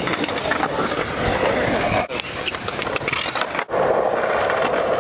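Skateboard wheels rolling on a smooth concrete skatepark surface: a steady rumble that sets in after a short break about three and a half seconds in.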